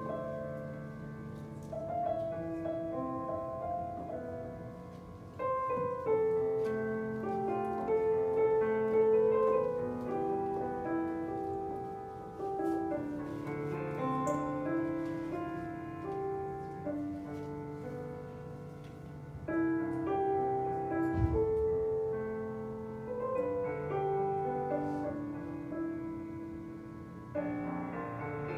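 Slow piano music from a video soundtrack playing over the room's speakers, with gentle notes held and overlapping.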